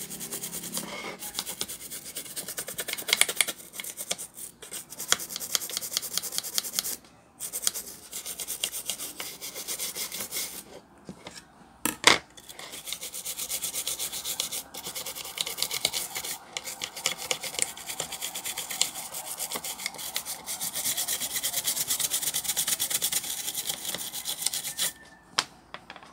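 Toothbrush bristles scrubbing the circuit board of a ZOTAC GeForce GTX 1050 Ti graphics card in rapid back-and-forth strokes, with a few short pauses. A single sharp click about halfway through is the loudest sound.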